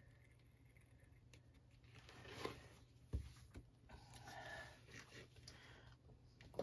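Near silence with faint handling sounds: a squeeze bottle of acrylic paint drizzling into a plastic cup, a few light clicks and a soft knock about three seconds in.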